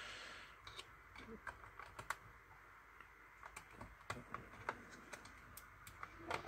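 Faint, irregular clicks and taps of fingers working the sealed card-slot cover and a memory card on a SIUI Smartor ultrasonic thickness tester.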